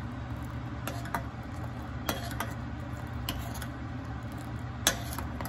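A metal utensil clinking against a pot of milk as it is stirred: about seven sharp clicks at uneven intervals, the loudest near the end, over a steady low hum.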